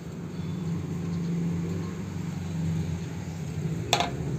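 A steady low motor hum, swelling and easing a little, with one sharp click near the end.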